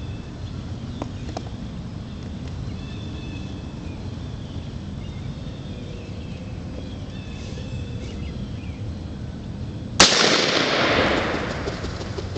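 A single 20-gauge shotgun blast about ten seconds in, its report trailing off over about two seconds. Before it, faint bird calls over a steady low background noise.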